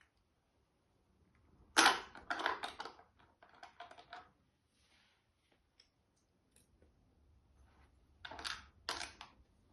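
Plastic Lego bricks being handled: short bursts of clicking and rattling as pieces are picked up and pressed together, in three bouts.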